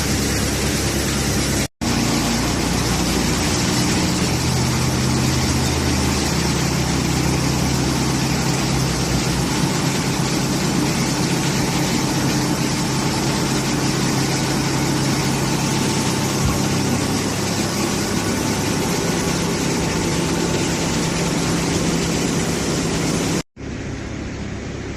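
Hydraulic silage baler-bagger running steadily: a loud, even mechanical hum with a hiss over it, broken by two brief silent gaps, one near the start and one near the end.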